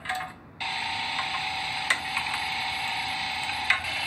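Electric meat grinder starting about half a second in and running steadily with a whine while it grinds raw tuna through the plate. Two short clicks sound over it.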